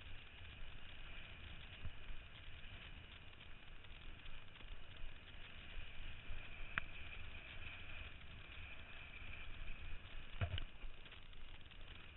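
Wind and water rushing past a kitesurfer's board-riding camera: a steady muffled noise with a low rumble. A sharp tap about seven seconds in and a louder knock about ten and a half seconds in.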